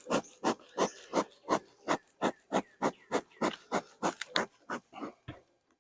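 Bee smoker's bellows pumped quickly, giving short, even puffs of air, about three a second, that stop near the end.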